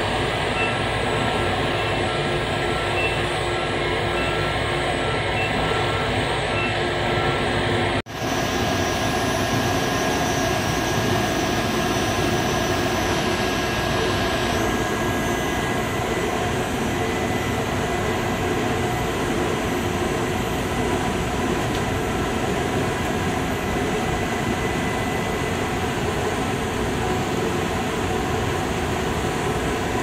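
Steady, loud din of a tunnel washing machine line and its conveyors running in an industrial laundry: a constant dense machine noise with a low hum and a few steady whining tones. It breaks off for an instant about eight seconds in and picks up again.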